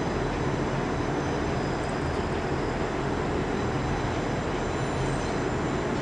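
Passenger train running steadily: an even rumble and hiss with a low hum underneath and a few faint, steady high-pitched whining tones.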